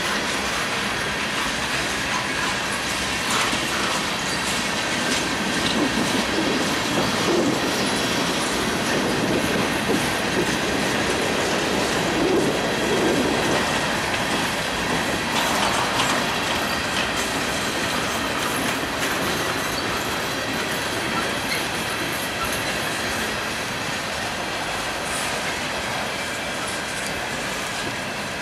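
Freight train cars (boxcars, centerbeam flatcars, tank car and covered hoppers) rolling steadily past on the rails, with wheels clicking over the rail joints and a faint high wheel squeal.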